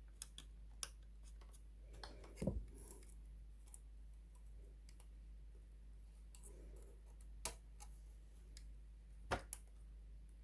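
Scattered sharp clicks and light taps of small plastic parts and cable connectors being handled inside an opened sewing machine. There is a quick cluster of clicks with a dull knock about two and a half seconds in, and a few single clicks later on.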